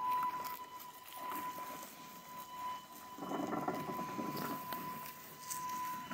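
Wheelchair drive motors of a radio-controlled electric mower running under brushed motor controllers, giving a steady high whine. A rough rumbling rustle of the nail-studded wheels rolling over grass and leaves comes in and is loudest between about three and five seconds in.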